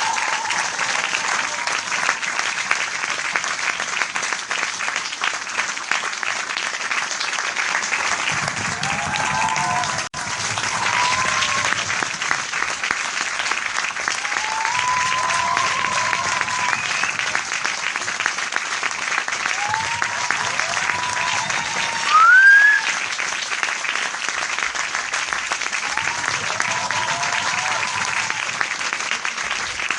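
Crowd applauding, a dense steady clapping with shouts and cheers rising above it every few seconds. It cuts out for an instant about ten seconds in, and a louder rising call stands out about three quarters of the way through.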